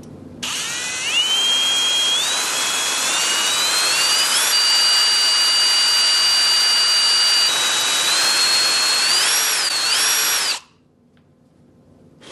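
Power drill boring a headphone-jack hole into an iPhone 7. A noisy whine climbs in pitch in steps and holds steady mid-way. Near the end it wavers, then cuts off suddenly about ten seconds in.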